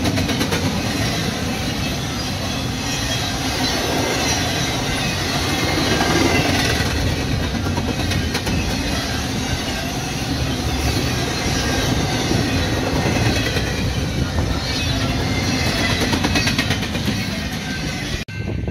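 Intermodal freight cars (double-stack well cars and trailers on flatcars) rolling past close by, with steady wheel-and-rail noise and the clickety-clack of wheels over rail joints. The sound cuts off suddenly near the end.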